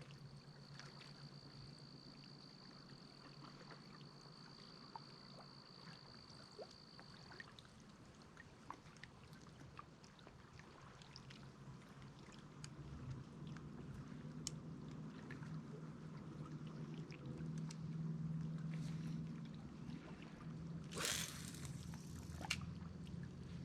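Water lapping and trickling against a kayak, with small clicks and knocks. A steady high tone sounds for the first seven seconds or so and then stops, and two short splashy rushes come near the end.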